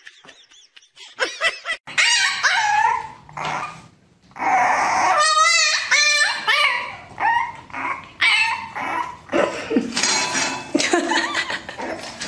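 A French bulldog puppy barking and whining in short high yaps, with a longer wavering cry about five seconds in.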